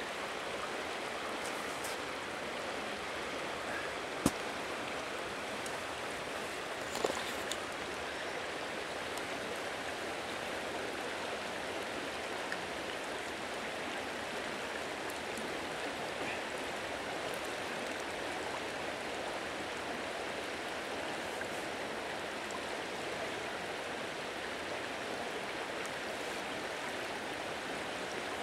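Steady rush of a flowing river, with a sharp click about four seconds in and a few smaller clicks about seven seconds in.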